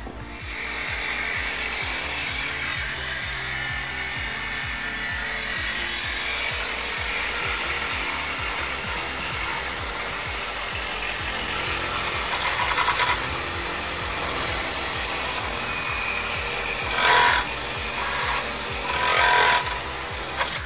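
Power saw cutting through a rusted exhaust pipe, running steadily with two louder bursts near the end. The pipe is being cut because it is rusted solid.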